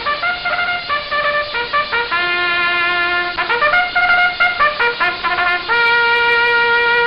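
A short brass tune played as a comedy sound effect. A run of quick notes at changing pitches ends on one long held note near the end.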